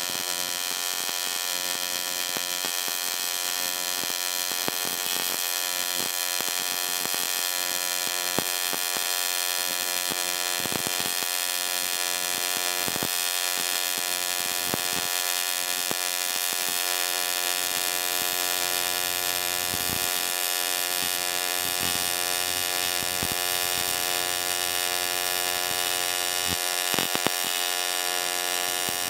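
AC TIG welding arc on aluminum, from an HTP Invertig 221, buzzing steadily as a continuous bead is run, with scattered brief crackles.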